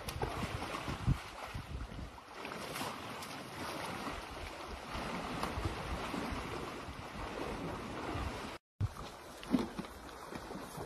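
Wind buffeting the microphone outdoors: a rough, steady rushing with irregular low thumps, cutting out for a split second near the end.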